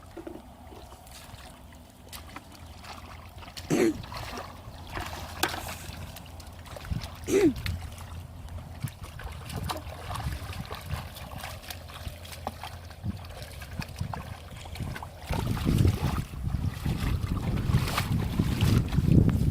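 Water trickling and splashing, with a few short sharp splashes in the first half. The sound grows louder and rougher at the low end about three quarters of the way through.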